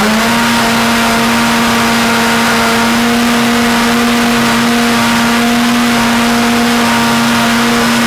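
Optimum 9200 high-speed blender running on high with a jug of almonds and water, its motor whine stepping up a notch at the start and then holding steady and loud.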